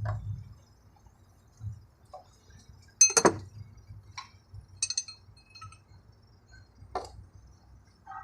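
Loose metal parts or tools clinking together: a handful of separate sharp metallic strikes with a brief ringing. The loudest comes about three seconds in, and lighter clinks follow near five and seven seconds.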